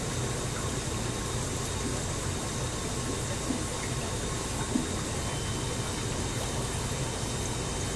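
Steady rush of running water and pump noise from aquarium filtration in a fish room, with a faint constant hum and a couple of small clicks near the middle.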